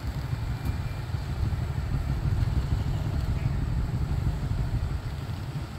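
Steady low rumble of a vehicle engine running.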